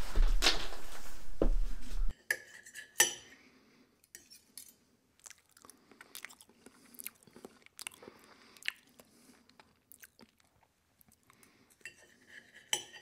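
Kitchen clatter of dishes and cutlery: a loud stretch of clattering over a low hum for about two seconds cuts off suddenly, leaving scattered light clinks and knocks of plates and utensils.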